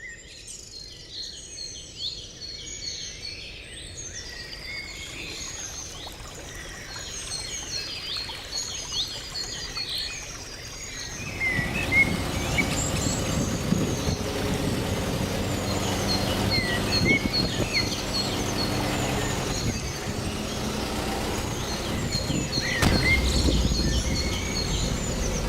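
Many small birds chirping and calling. About eleven seconds in, the low, steady running of an off-road 4x4's engine comes in beneath them and grows louder near the end.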